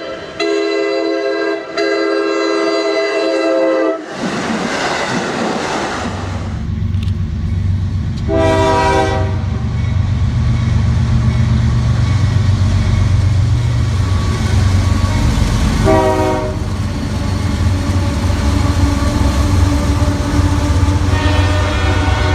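Locomotive air horn sounding a long chord of several notes, then a rush of noise and a train passing with a deep steady rumble and rail clatter. The horn gives two short blasts, about 8 and 16 seconds in, and starts again near the end.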